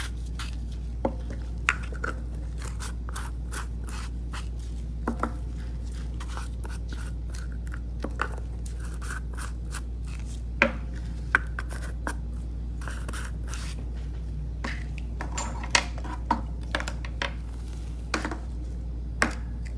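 Scattered small clicks, taps and short scrapes of hand work with nail-art tools and powder jars, a few sharper snaps among them, over a steady low hum.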